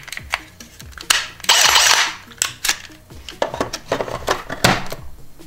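Hard plastic clicking and knocking, with a scraping slide about one and a half seconds in, as an opened Milwaukee M18 battery pack is handled and seated on its charger.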